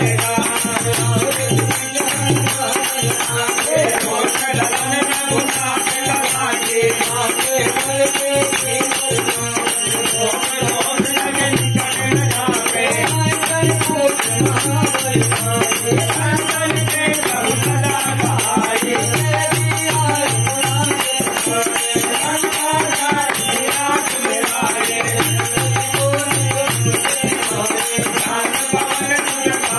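Live bhajan devotional music: a man singing over a harmonium, with a dholak drum and wooden kartal clappers keeping a fast, steady rattling rhythm.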